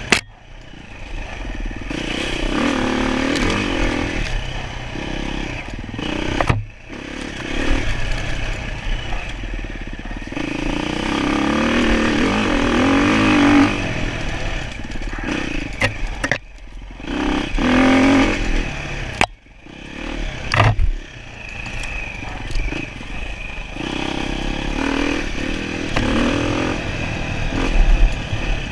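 Enduro dirt bike engine being ridden, its pitch rising and falling again and again as the throttle is worked. The sound drops out or breaks off suddenly several times.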